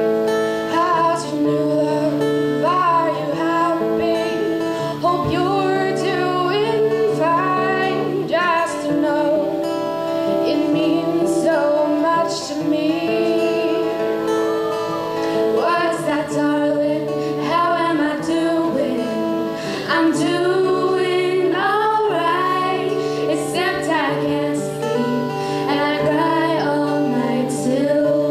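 A woman singing a slow song to her own strummed acoustic guitar.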